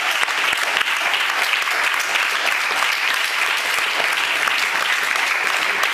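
Audience applauding, many hands clapping in a dense, steady stream.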